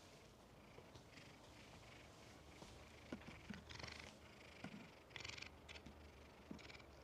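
Domestic cat purring faintly: a low steady rumble with a few short breathy bursts.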